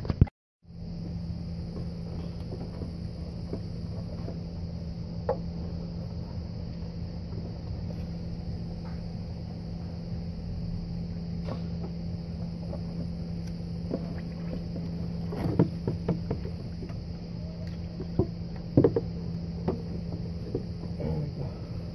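Scattered clicks and knocks of a hard plastic thermostat housing and its hoses being worked loose and pulled out of an engine bay, most of them in the second half, over a steady low hum. The sound cuts out for about half a second right at the start.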